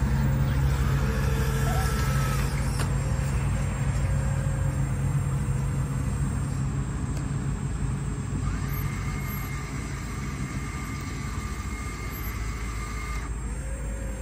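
Radio-controlled hydraulic model Caterpillar 320 long-reach excavator working: a steady low engine-like hum, with a higher motor whine that starts about two-thirds of the way in and cuts off near the end as the long boom slews out over the water. The hum slowly fades.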